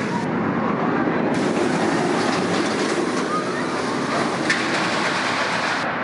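Steel roller coaster train running along its track, a steady rumble with voices faintly mixed in.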